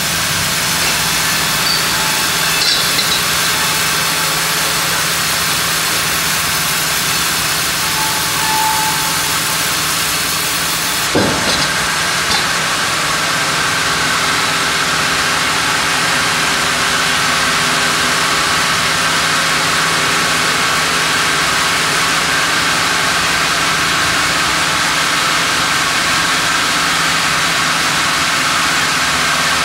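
Large sawmill band saw headrig cutting through a monkeypod (rain tree) log as the carriage feeds it past the blade: a loud, steady mechanical whir of saw and machinery. About eleven seconds in a short jolt changes the sound, which then runs on as a steadier hum.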